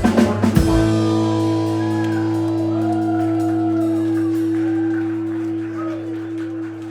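A live rock band ends a song: a last couple of drum hits, then a final chord on bass, guitar and keys held and ringing out, slowly fading. A few audience voices and whoops rise over it.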